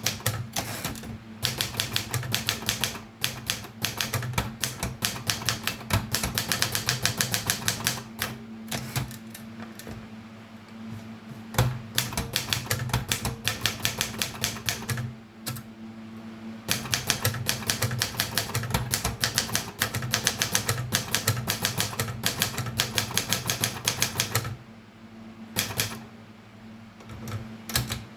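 Erika 32 manual typewriter being typed on: keys strike in quick runs of several clacks a second, with short pauses about a third and halfway in and a longer pause near the end. A steady low hum sits underneath.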